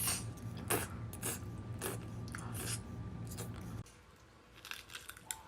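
A person eating spicy noodles close to the microphone: a string of short, sharp chewing and biting noises, about one a second. A steady low hum runs under them and cuts off suddenly about two-thirds of the way through, leaving only a few faint clicks.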